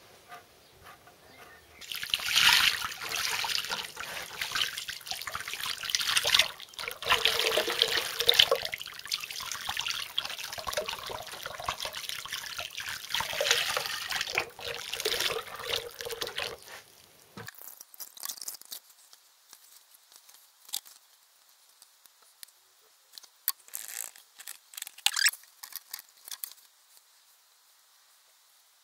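Thick wet plaster of Paris slurry pouring from a bucket into a plaster mould, a continuous liquid splashing lasting about fifteen seconds. After that come fainter, scattered light taps and rustles as hands press fibre reinforcement into the wet plaster.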